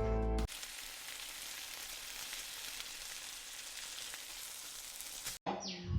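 Food frying in hot oil in a pan: a steady sizzle that starts just after a brief tail of music and cuts off abruptly near the end.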